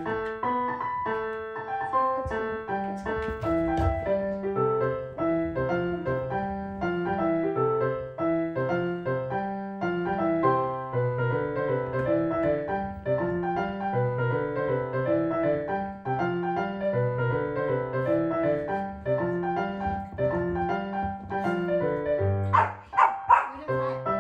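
Background piano music with a steady rhythm of notes. Near the end a dog barks a few times in quick succession.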